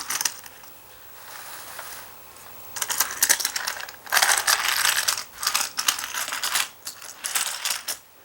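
Plastic parts of a Hot Wheels Construction Site playset clicking and rattling like a ratchet, in four bursts of rapid clicks each under a second long, starting about three seconds in.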